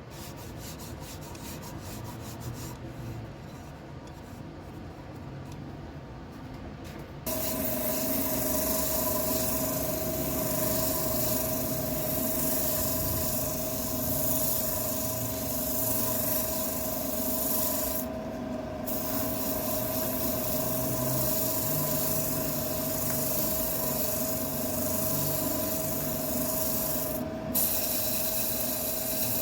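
Abrasive rubbing against a wooden bowl spinning on a lathe. It starts quieter and rough, then about seven seconds in turns abruptly into a louder steady hiss over a constant hum, with two short breaks in the hiss.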